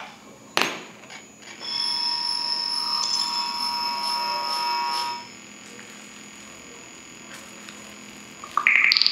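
Electronic tones from a sculpture's photosensitive electronic sound mechanism. A click, then a steady tone of several pitches held for about three and a half seconds, a faint hum, and near the end loud beeps that jump between pitches.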